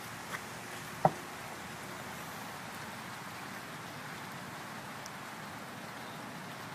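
Steady rain falling, an even hiss, with a single sharp click about a second in.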